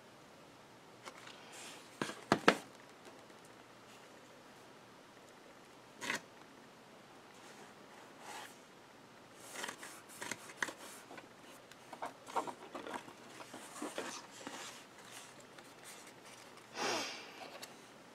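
Hands handling die-cut cardstock pieces and a glue bottle on a craft mat: two sharp knocks about two seconds in, another knock near six seconds, then scattered light rustles and taps of paper being pressed and moved, and a brushing swish near the end.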